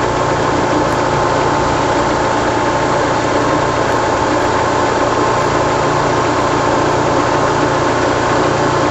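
Car engine idling steadily, heard close up from the open engine bay.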